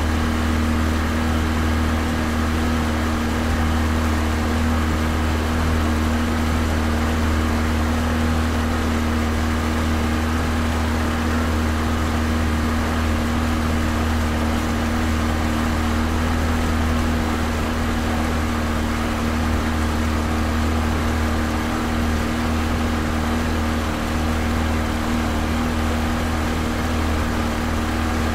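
Pontoon boat motor running steadily at medium speed, heard close to the motor: a constant low drone with a steady pitched tone over it, holding the same pitch and level throughout.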